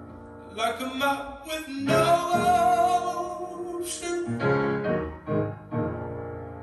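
Music: slow piano chords, with a singing voice holding a long line from about half a second to four seconds in.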